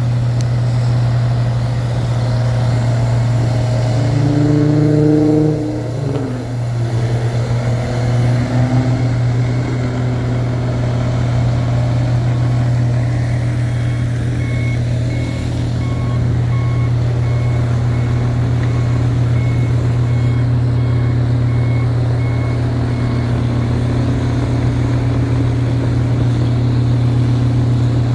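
Heavy snow-clearing machinery, including a loader-mounted snowblower and dump trucks, running with a steady low engine drone; the engine note shifts a few seconds in. Through the middle stretch a reversing alarm beeps at an even pace, a bit slower than once a second.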